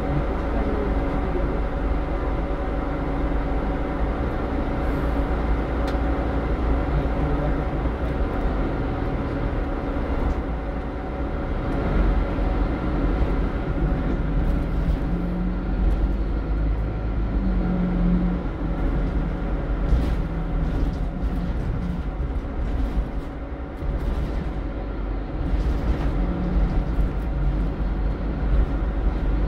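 Interior sound of a Scania-chassis Alexander Dennis Enviro300 single-deck bus on the move: a steady low engine and road rumble, with the engine note stepping up and down several times as it changes speed, over light rattles from the interior.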